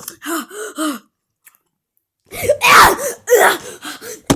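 A person coughing: two loud, harsh coughs about two and a half and three and a half seconds in, after a few short voiced sounds and a pause.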